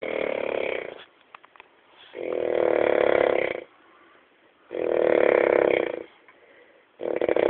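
Snoring, one long snore about every two and a half seconds, with quiet gaps between the snores.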